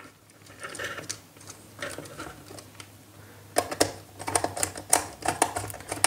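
Screwdriver working the terminal screw of a plastic 5-pin socket on a switch board, securing a wire. Faint rustling of the wire is followed, a little past halfway, by a quick run of small clicks and scrapes.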